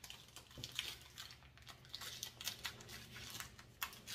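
Faint crinkling and tearing of a foil Pokémon booster-pack wrapper being opened, in many small crackles.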